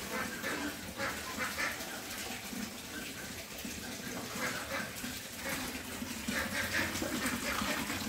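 Water running steadily from a wall tap into a plastic basin, with short higher-pitched sounds breaking in now and then.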